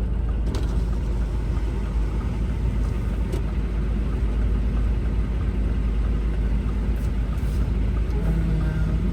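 Semi-truck's engine and cab noise, a steady low rumble. A brief low steady hum joins near the end.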